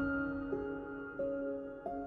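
Soft, slow instrumental background music, with a new sustained note or chord struck about three times a second and a half apart.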